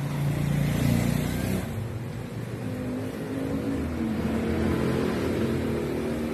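A motor vehicle engine running, its pitch rising and falling.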